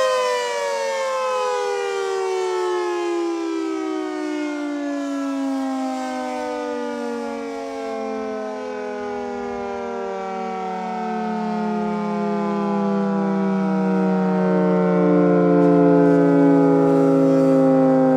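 Federal Signal 3T22A three-tone outdoor warning siren winding down, its pitch falling steadily and slowing to a low growl as the rotor coasts after the attack signal ends. The sound grows louder again near the end.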